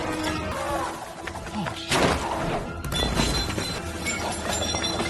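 Movie action-scene soundtrack: crashing and shattering impacts over dramatic music, with a loud crash about two seconds in.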